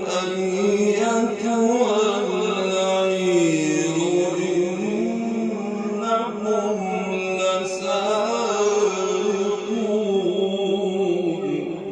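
Male Quran reciter chanting in the melodic tajweed style: one long, ornamented phrase with many small turns of pitch, dipping lower about three seconds in and rising again, then trailing off near the end.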